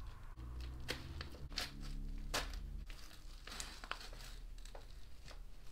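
A small knife slicing along the paper edge of a padded bubble mailer: crinkling and tearing paper with irregular sharp scratchy clicks.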